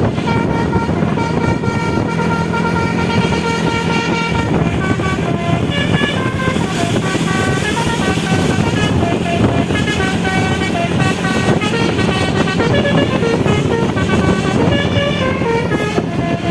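Basuri V3 multi-trumpet telolet bus horn playing a long melody, several tones sounding together and stepping up and down in quick succession, over a steady low rumble.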